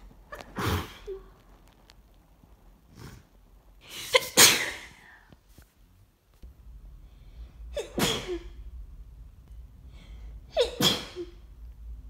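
A person sneezing four times, a few seconds apart, the second sneeze the loudest and preceded by a short intake of breath. These are hayfever sneezes, dry and allergic-sounding, set off by pollen.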